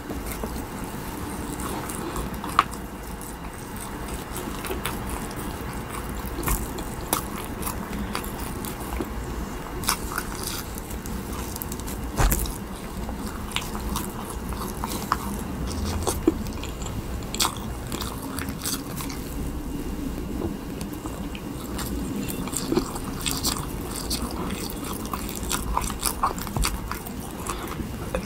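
Biting and chewing a soft, Baby Yoda-shaped character jelly, with irregular wet mouth clicks and small crunches.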